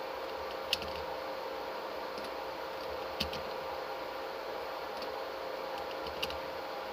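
Steady mechanical hum with a faint steady tone, broken by three short clicks: about a second in, a little after three seconds, and near the end.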